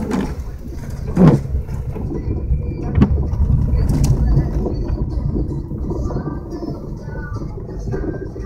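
Vehicle engine and road rumble heard from inside the cab while driving a snow-covered road, with a short sliding-pitch sound about a second in.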